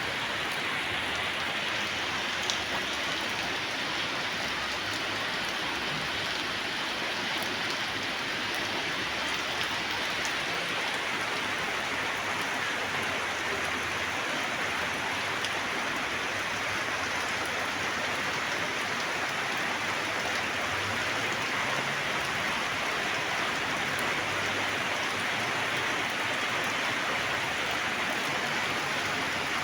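Steady rain falling, an even hiss, with a few sharper drop ticks here and there.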